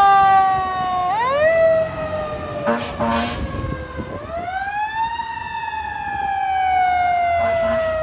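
A fire engine's Federal Q mechanical siren winding up and coasting down in long, sliding sweeps: it spins up sharply at the start, again about a second in, and once more around four seconds before its pitch slowly falls away. A couple of short air horn blasts come about three seconds in.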